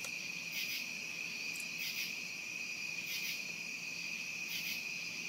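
Night insects trilling steadily in a high chorus, with a louder pulse about every second and a half.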